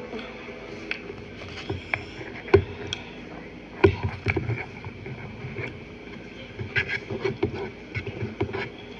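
Close-up eating sounds of someone eating saucy noodles: chewing and slurping with an open mouth, and a fork clicking and scraping in a plastic bowl, in short sharp bursts over a steady background hum.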